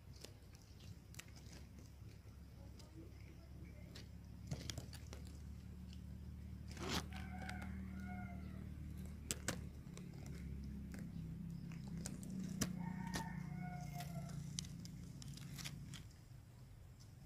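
A rooster crowing twice, each crow about a second and a half long, over scattered crackles and snaps of dry leaves and branches being handled.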